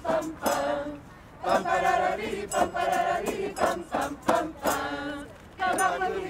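A group of men and women singing a janeiras song together, a traditional Portuguese New Year carol, in phrases broken by a short pause about a second in and another near the end.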